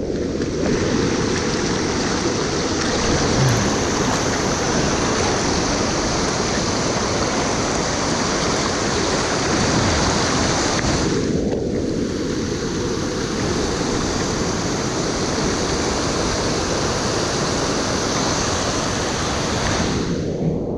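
Steady rush of river water pouring over a weir and rocks, thinning briefly twice.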